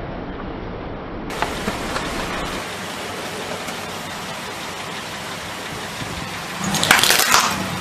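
A steady noisy hiss with a few light clicks, then near the end a short, loud crackling crunch as a car tyre starts rolling forward onto a row of aluminium soda cans and plastic candy boxes.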